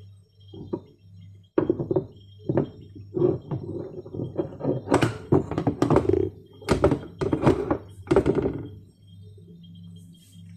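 A run of thunks, knocks and clatter as a boxed GEZE TS4000 hydraulic overhead door closer and its packaging are handled, starting about one and a half seconds in and stopping near the end.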